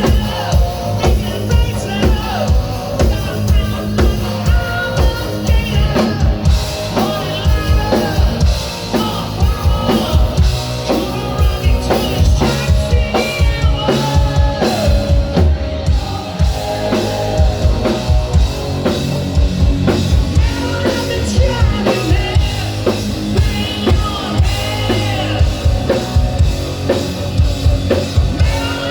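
Rock music with a steady drum-kit beat and a melodic line above it.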